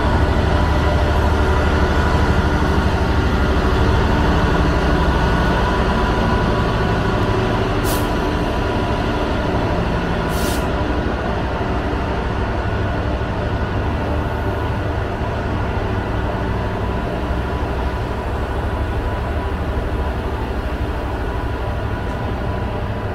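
GBRf Class 66 diesel locomotive running past with its two-stroke diesel engine working, then a rake of loaded hopper wagons rolling by on the rails with a steady low rumble that slowly fades. Two short high hisses come about eight and ten seconds in.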